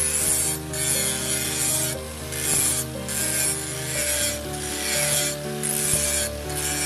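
Electric angle grinder with an abrasive disc grinding the steel of a leaf-spring knife blade: a harsh, steady grinding hiss that dips briefly several times as the disc is worked along the blade in passes.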